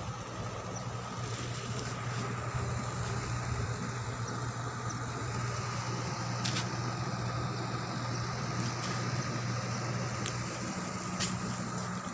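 Steady drone of a ship's machinery, with a low hum and a thin higher whine, and a couple of faint clicks.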